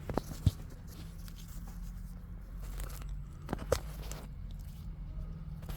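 A few light clicks and knocks of handling over a steady low hum, as a phone is fumbled into a propped-up position.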